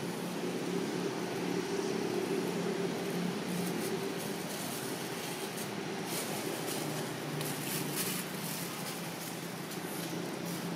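Steady low mechanical hum, with faint scratchy rustles in the middle.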